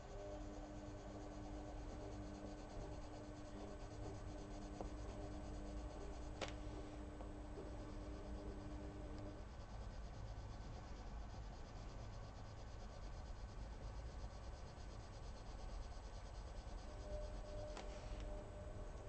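Faint scratching of a Prismacolor coloured pencil shading and blending on paper. Under it is a steady low hum that stops about nine seconds in, and there are two small clicks, about six and eighteen seconds in.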